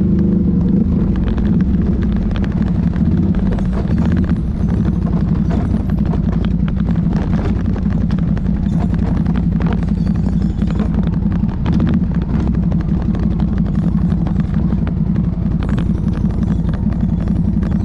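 ATV engine running steadily while the quad is ridden, with many short clicks and knocks over it.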